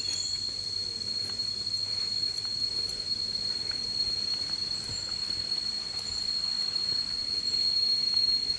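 Insects droning in the forest: one steady, high-pitched buzzing tone that holds without a break.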